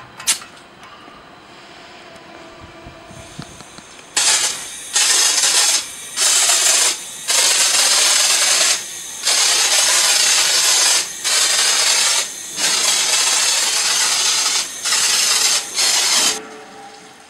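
AA-350A pressurised foam sprayer spraying car-wash foam from its nozzle: loud hissing in about nine bursts of half a second to two seconds, starting about four seconds in and cutting on and off abruptly. A sharp click right at the start.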